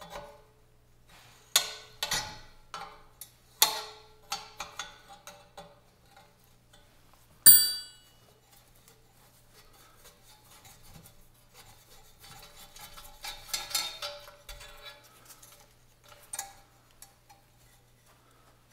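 Metal tools and parts clinking, tapping and scraping on a rusty Coleman 220BX lantern as its generator and tip cleaner are worked loose. One loud ringing metallic clink comes about seven and a half seconds in, and a patch of rattling and scraping comes near the two-thirds mark.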